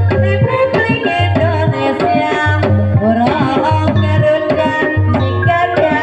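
Javanese gamelan music accompanying an ebeg horse-trance dance: quick kendang hand-drum beats with deep drum strokes under ringing metallophone melody lines.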